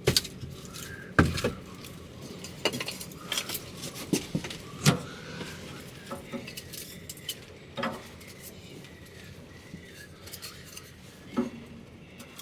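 Irregular clinks and knocks of small hard objects, metal and glass, being handled and set down; the sharpest come just after the start, about a second in and about five seconds in.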